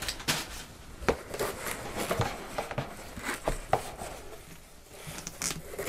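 Scattered light taps, knocks and rustles of hands handling a cardboard shipping box and the plastic-wrapped hardcover book inside it as the book is worked loose.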